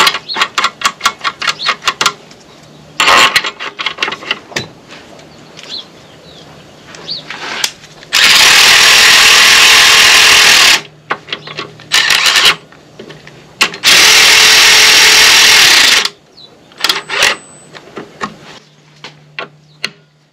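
Quick clicks, then a power tool runs loudly twice, each run about two and a half seconds, driving in the two bolts that mount the motorcycle's front brake caliper to the fork.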